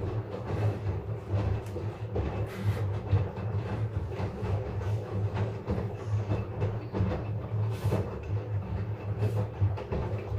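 LG front-load washing machine running on its rinse and spin cycle: a steady low motor and drum hum with frequent irregular knocks and rattles.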